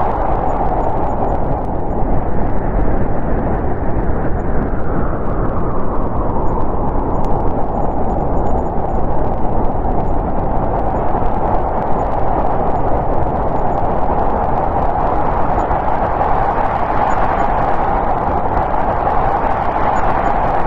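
Snowstorm wind blowing steadily, a dense rushing noise strongest in the middle register that eases a little partway through and builds again near the end.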